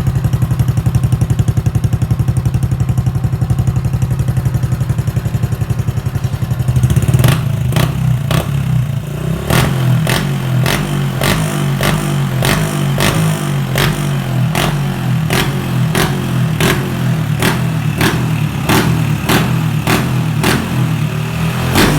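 Motorcycle engine running through an aftermarket M-Speed split stainless-steel exhaust, idling with a steady low burble. About seven seconds in the note changes and sharp, regular cracks come from the exhaust about every half second to second.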